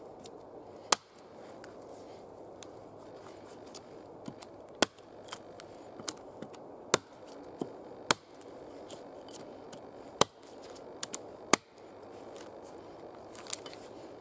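Hatchet chopping a notch into a barked log: about six sharp blows, one every one to two seconds, with lighter taps between, over a steady background hiss.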